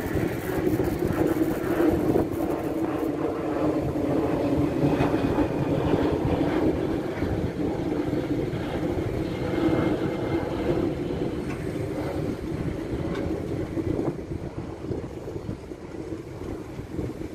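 Sumitomo SH210 hydraulic excavator's diesel engine running steadily under load, its hydraulics working as it swings, digs and loads soil into a dump truck, with scattered knocks.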